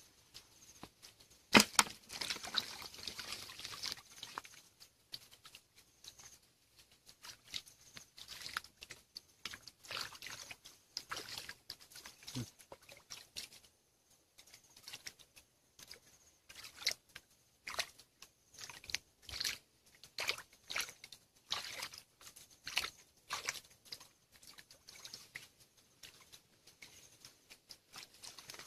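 Hands splashing and groping in shallow, muddy stream water: irregular short splashes and patters, with one sharp splash about a second and a half in.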